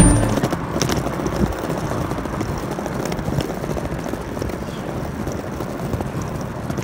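Steady rushing outdoor background noise, with a few faint ticks.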